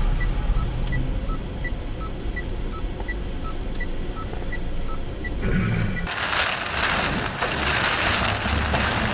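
Car cabin with low road and engine rumble and a turn-signal relay ticking, an alternating tick-tock about three clicks a second. At about six seconds it gives way to the loud, dense hiss of heavy rain on the windscreen and tyres on a flooded road.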